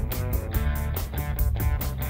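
Background music: guitar over a steady, quick beat and bass.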